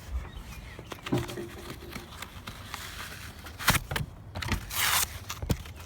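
Scattered light knocks and clicks, with a sharper knock past the middle and a brief rustling hiss near the end.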